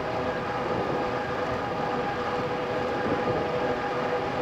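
RadRover fat-tyre electric bike on the move at steady speed: a steady whine from the hub motor over the rumble of the fat tyres on the road.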